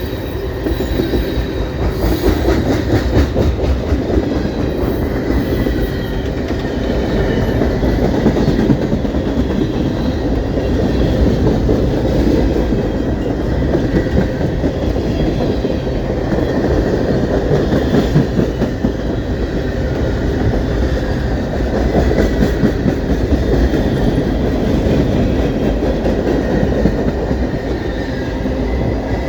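A Canadian Pacific train rolling past, its cars' wheels clattering steadily over the rails, with a faint high squeal at times.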